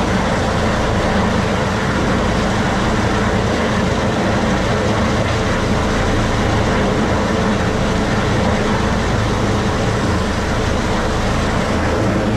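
Rescue helicopter hovering close overhead during a hoist: loud, steady rotor and turbine noise that does not let up.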